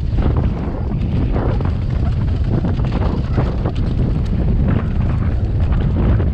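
Wind buffeting the microphone of a helmet-mounted camera on a fast mountain bike descent, with the tyres crunching over loose dirt and rocks and the bike rattling with irregular knocks.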